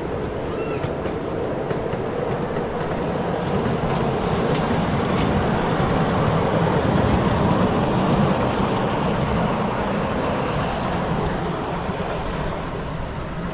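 Miniature ride-on train with loaded passenger cars rolling past on its small-gauge track. It grows louder as it approaches, is loudest a little past the middle, then fades as it moves away.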